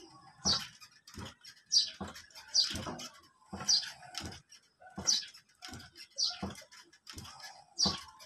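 Wooden rocking chair creaking as it rocks: a short, high, falling squeak with a low knock about every 1.2 seconds, with lighter clicks between.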